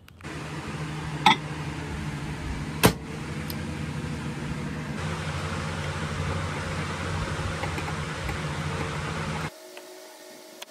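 Steady hum of a running appliance with two sharp clinks in the first three seconds. The hum cuts off abruptly about nine and a half seconds in, leaving a quieter room with faint ticks.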